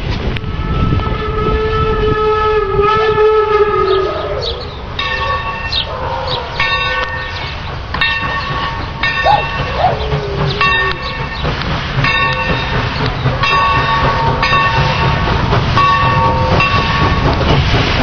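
Steam locomotive whistle blowing a long chord that sags in pitch and dies away about four seconds in. After that the train runs on with a low rumble, and a ringing tone repeats about every second and a half.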